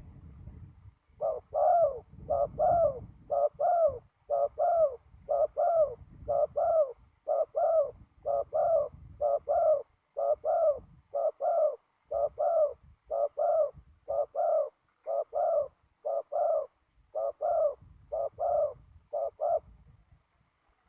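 Spotted dove cooing: two-note coos repeated steadily about once a second, starting about a second in and stopping shortly before the end. Wind rumbles on the microphone underneath.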